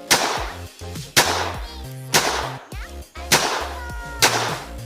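Five .22 LR gunshots about a second apart, each a sharp crack that trails off, over background music.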